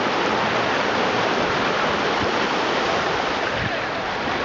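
Steady rush of ocean surf, with shallow waves washing up over the sand.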